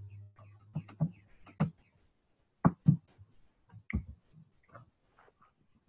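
Irregular sharp clicks of a computer mouse and keyboard, a dozen or so taps with short gaps between them. A low hum fades out in the first second.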